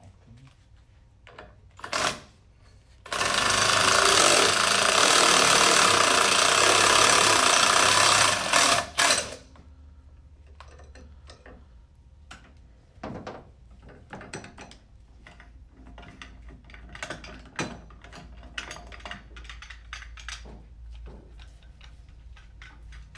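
Cordless impact wrench running for about six seconds, with a short burst just before, backing off the puller that holds the CVT variator compressed against its spring. Light knocks and clicks of metal parts being handled follow.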